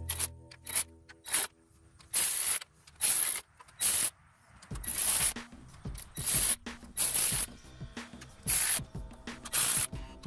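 Ratchet wrench worked in about ten short ratcheting strokes at irregular intervals.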